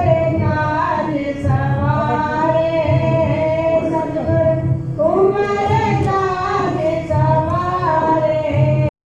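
Singing voices holding long, wavering notes over instruments with a regular low beat; the sound cuts out suddenly near the end.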